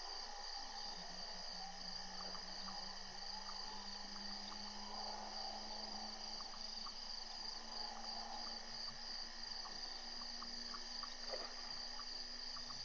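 Night insects chirring steadily in a constant high-pitched chorus, with a few faint scattered ticks and a low steady hum underneath.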